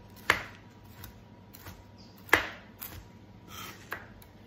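Kitchen knife chopping frozen banana on a plastic cutting board: two sharp knocks of the blade striking the board, about two seconds apart, with a few lighter taps between.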